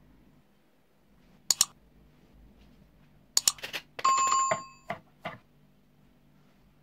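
Subscribe-button animation sound effect: a quick run of clicks, then a short bell ding lasting under a second. A single sharp click comes about a second and a half in.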